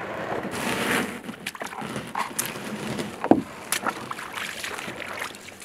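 Water splashing and sloshing as a person steps out of a canoe and wades in shallow water over a stony bottom, with small knocks against the canoe and one louder knock a little past halfway.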